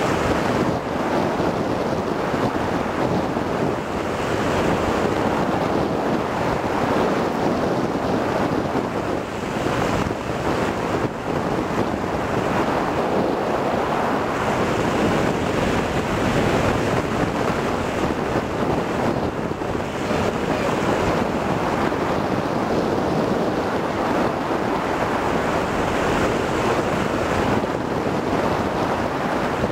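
Steady, loud rush of wind noise from airflow over the microphone of a camcorder taped to a hang glider's control bar in flight.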